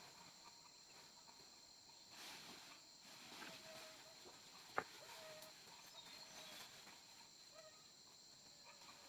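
Faint, steady high-pitched chorus of insects such as crickets, with a few short chirps and one sharp click about halfway through.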